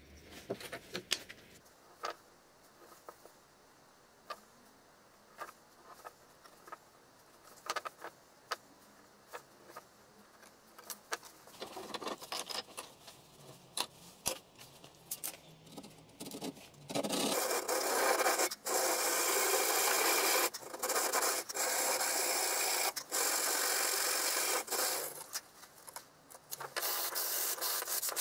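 Light knocks and clicks of small wooden pieces being handled and set into a bench vise, then, a little over halfway through, a loud continuous scratching of a wooden block rubbed by hand on sandpaper, with short breaks between strokes.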